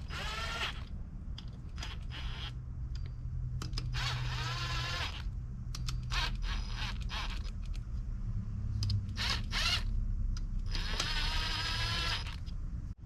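Three drawn-out squeaks or creaks, each about a second long, near the start, about four seconds in and about eleven seconds in, with scattered short clicks between them over a steady low hum.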